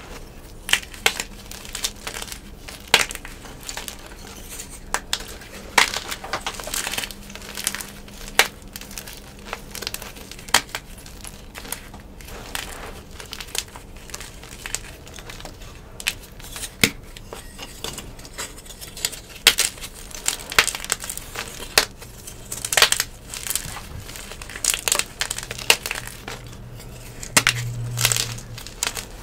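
Blocks of gym chalk crushed and squeezed in bare hands: irregular hard, crunchy cracks and crackles as chunks break, with softer crumbling of the powdery pieces between.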